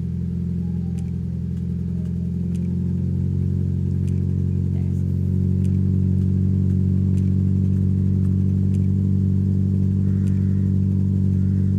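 Mazda MX-5's four-cylinder petrol engine idling just after a start, steady and getting a little louder about halfway through. It is running rough with a misfire that new spark plugs and HT leads have not cured, and the owner suspects the injectors.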